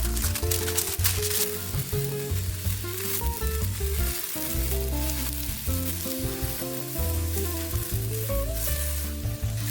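Food sizzling and crackling as it cooks over a campfire, under background music with sustained notes and a bass line.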